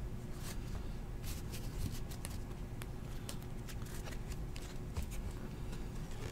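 Football trading cards being handled and flipped through by hand: a run of light, scattered card clicks and rustles over a faint steady hum.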